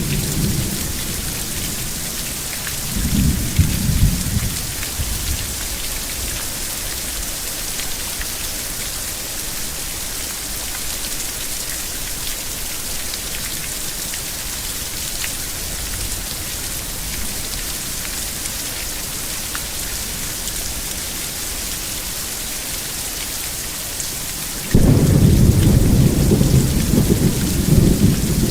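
Steady heavy rain hissing. A short rumble of thunder comes about three seconds in, and a louder rumble starts suddenly near the end.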